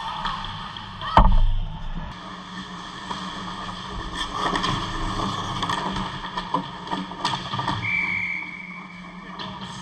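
On-ice ice hockey game sound: skates scraping, sticks and puck clacking in quick irregular knocks, with one loud heavy thud about a second in. A steady low hum runs underneath, and a steady high tone sounds for about a second and a half near the end.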